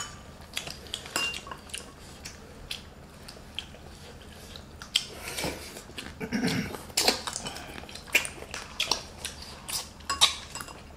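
Chopsticks and tableware clinking against porcelain bowls and plates: scattered light clicks and taps.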